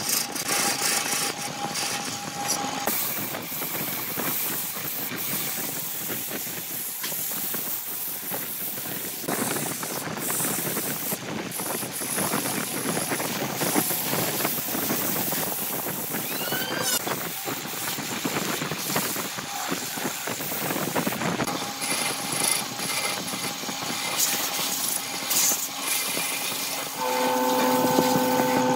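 Wood lathe spinning a piece of aged grapefruit wood, with a turning tool cutting and scraping at the vase's neck and, in between, sandpaper held against the spinning body: a steady hissing whir. A steadier hum comes in near the end.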